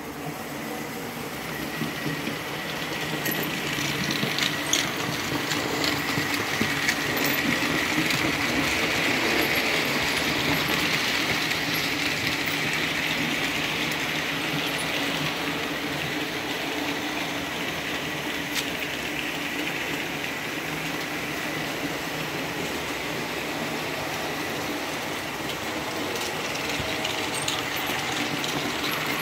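Märklin model trains running on metal track: a steady rolling rattle of wheels on rail with a high motor whine. It grows louder over the first several seconds as a train comes close. A few sharp clicks are heard, about five seconds in and again near the middle.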